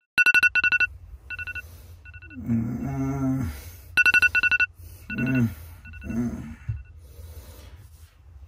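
Electronic alarm beeping in rapid clusters of short, same-pitched beeps that repeat as the pattern cycles, waking a sleeper. Between the beep clusters a man groans sleepily a few times.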